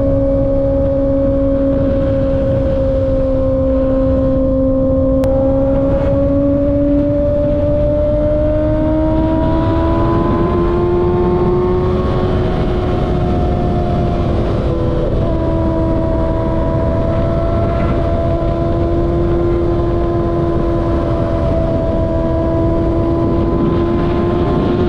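Kawasaki ZX6R's 636 cc inline-four through a slip-on M4 exhaust, running under steady throttle at highway speed. The engine note holds one pitch, climbs gradually for a few seconds from about seven seconds in, eases back slightly, then holds steady again over a constant rush of wind and road noise.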